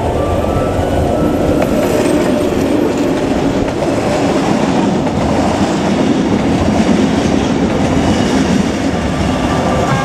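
Diesel-hauled freight train of boxcars passing close by, a steady, loud rumble and rattle of the wagons' wheels on the rails.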